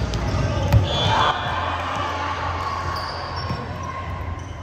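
Indoor volleyball play: low ball thuds and one sharp hit a little under a second in, followed by players' shouts, with a steady low hum underneath.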